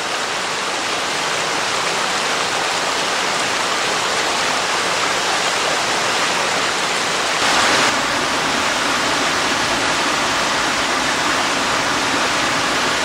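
Waterfall rushing steadily, a continuous hiss of falling water, briefly louder for a moment about halfway through.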